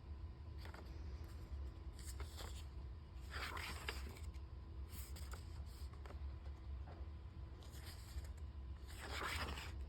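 A series of short, soft scraping rustles, about seven spread over several seconds, over a steady low electrical hum.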